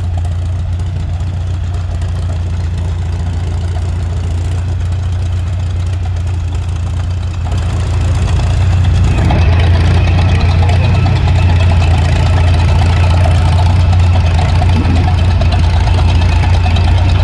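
A heavy engine running steadily with a low hum, growing louder about eight seconds in.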